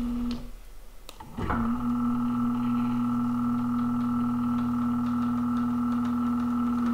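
Power-Pole shallow-water anchor's hydraulic pump, running with a steady electric hum as the pole is cycled to purge air from the hydraulics. It stops briefly about half a second in, then starts again and runs smoothly. The owner takes the smooth note as a sign that the air is about all out.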